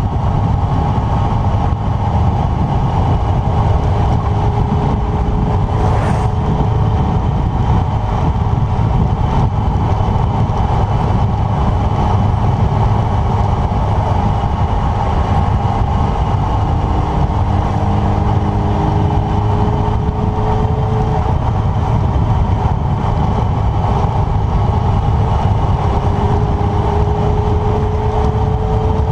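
Yamaha motorcycle cruising at a steady road speed, heavy wind noise rushing over the bike-mounted camera with the engine running steadily underneath. Near the end the engine note edges up as the bike gently speeds up.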